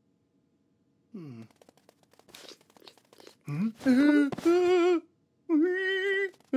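A cartoon man's wordless frightened cries. A startled gasp rises into a loud yelp about three and a half seconds in, then a longer held wail near the end, after a little faint ticking earlier on.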